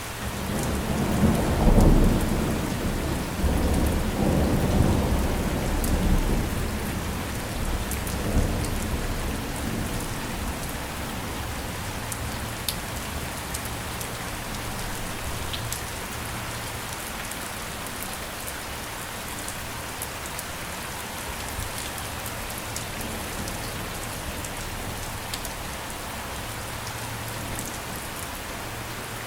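Steady rain falling, with a rumble of thunder that swells in the first second, peaks about two seconds in and rolls away by about nine seconds in.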